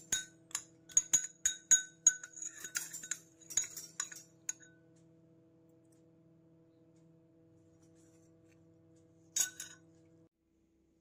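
A metal fork clinking against the bowl while stirring melted chocolate: a quick run of about a dozen ringing clinks over the first four seconds or so, then one more about nine and a half seconds in. A faint steady hum sits underneath and stops just after ten seconds.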